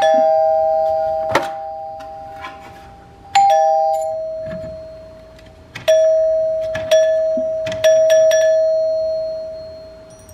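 Mechanical doorbell chime rung repeatedly, its plunger striking the metal tone bars about seven times. Each strike rings on and slowly fades, on a higher and a lower note that sometimes sound together as a ding-dong.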